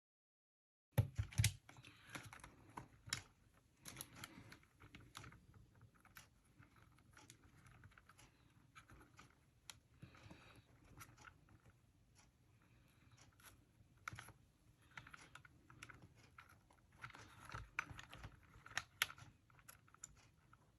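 Faint, irregular clicks and taps of small plastic and metal parts of a 1/10-scale RC car chassis being handled and fitted by hand, starting after about a second of dead silence.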